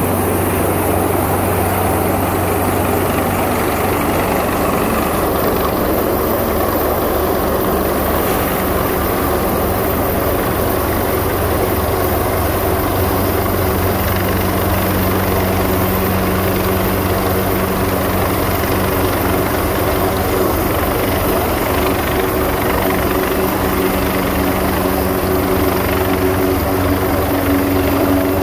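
Twin-turbine Coastguard search-and-rescue helicopter hovering overhead: steady turbine and rotor noise with the fast, even beat of the main rotor.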